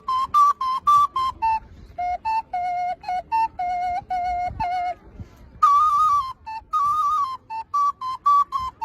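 A small whistle flute playing a quick improvised melody of short, separate notes, hopping among a few pitches. It holds two longer, slightly wavering notes about six and seven seconds in.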